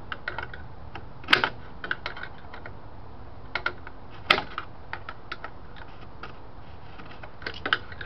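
Two small screwdrivers clicking against the dash light-switch retaining nut as it is worked loose by hand. There are scattered light ticks, with two sharper clicks about a second in and about four seconds in.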